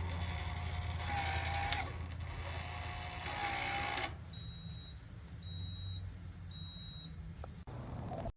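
Schlage smart deadbolt: two short whirring runs with a slight rise in pitch, then three short high beeps about a second apart.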